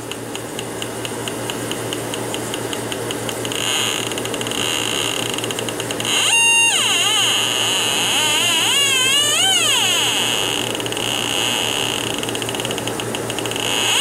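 H10 halogen refrigerant leak detector clicking rapidly, about six clicks a second, the clicks running together into a steady high tone, then shrieking with a rising-and-falling pitch about six seconds in and again around nine seconds. The shriek means the probe is picking up R-22 refrigerant leaking from a brazed copper return bend on the coil.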